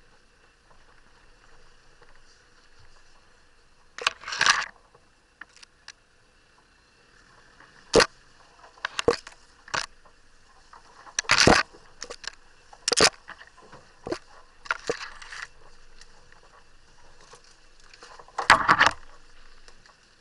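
Branches and leaves scraping and rustling against a camera mounted on the outside of an off-road vehicle. About eight short, loud scrapes come a second or several seconds apart, over a faint steady background.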